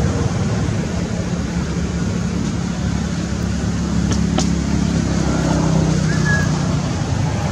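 Steady low rumble of a motor vehicle engine, with a couple of faint clicks about four seconds in and a brief high chirp near the end.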